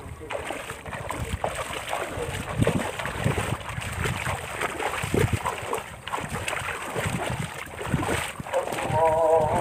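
Feet wading through shallow, muddy water: irregular splashing and sloshing.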